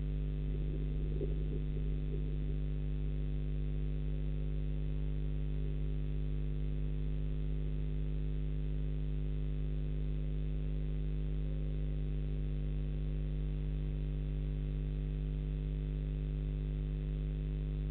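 Steady electrical hum made of several unchanging tones with a strong low drone, the kind of mains hum picked up by a webcam's audio line. A faint brief flicker of sound about a second in.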